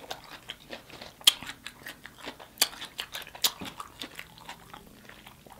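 A person chewing and smacking their lips close to the microphone while eating: wet mouth clicks and smacks at irregular intervals, the sharpest about a second in, midway, and around three and a half seconds in.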